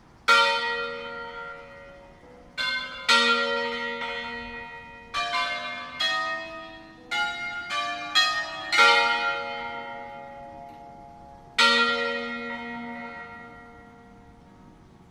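A five-bell peal of swinging church bells tuned in B♭, played as an Ambrosian-style concerto: the bells are swung up from mouth-up rest and strike one at a time in an irregular melodic sequence. There are about ten strokes, several in quick succession around the middle, and each rings on and fades.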